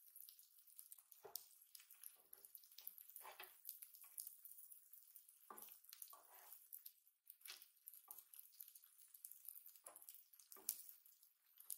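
Faint sizzling of okonomiyaki on an electric griddle plate, broken by scattered scrapes and clicks of metal spatulas sliding under the pancakes and knocking against the plate.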